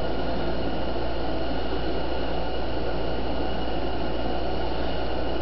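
Steady background hum and hiss, even throughout, with no distinct clicks or handling sounds.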